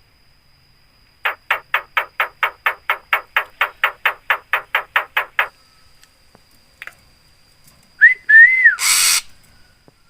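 Javan myna calling: a fast run of about twenty clipped, harsh notes, some five a second, lasting about four seconds. Near the end come two short whistled notes that rise and fall, then a loud harsh burst.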